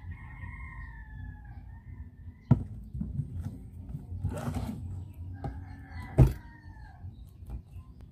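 A rooster crows twice in the background, each a long call falling slightly in pitch, one at the start and one past the middle. Two sharp knocks on a tin can being handled and worked open, about two and a half and six seconds in.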